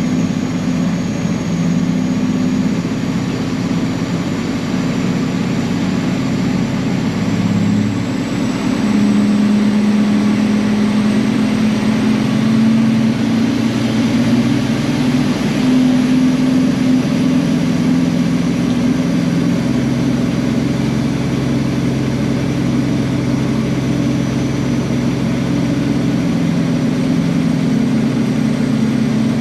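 Peterbilt semi truck's diesel engine running steadily at low speed, its note stepping up and growing a little louder about eight seconds in.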